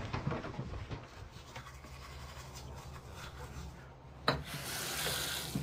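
Faint rubbing and scraping over a low steady hum, then a sharp knock about four seconds in, followed by a hiss of just over a second.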